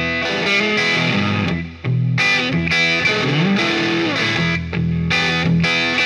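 A 2017 Gibson Firebird T electric guitar, heard through an amplifier and a 2x12 Shaw Audio cabinet, playing struck chords and single notes. There is a brief break just before two seconds in, and a note slides up in pitch about three seconds in.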